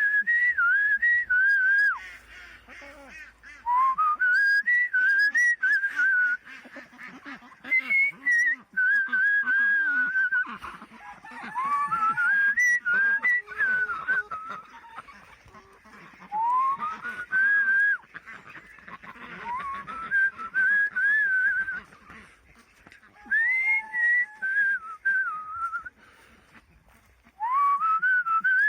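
A person whistling a short rising-and-falling tune over and over, in phrases a few seconds long with pauses between them: a feeding call that farm ducks and chickens are trained to link with food.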